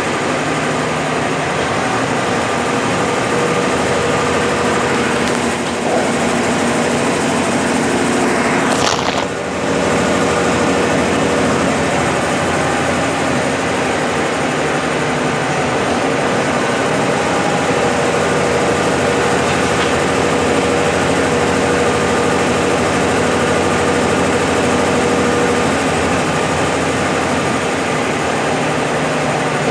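Brastemp BWL11 11 kg washing machine in its spin cycle with a load of rugs, running with a steady whir and hum that dips briefly about nine seconds in.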